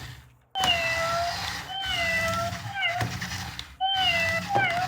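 Electronic toy robot cat playing its recorded meow over and over, the same falling meow repeated about four times after a brief pause, with a low rumble underneath.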